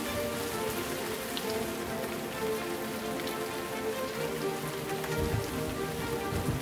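Steady rain falling on a surface during a storm shower, with soft background music of held notes over it and a couple of low thumps about five seconds in and near the end.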